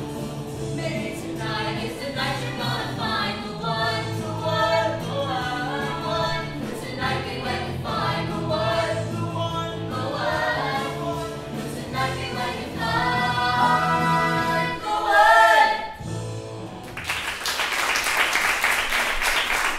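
Cast singing a musical-theatre number together over a piano-and-band accompaniment, building to a loud final note about three-quarters of the way through. The song cuts off and audience applause follows near the end.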